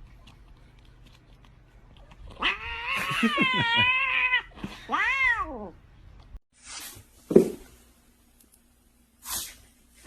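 A domestic cat yowling twice: a long, wavering call, then a shorter one that rises and falls in pitch.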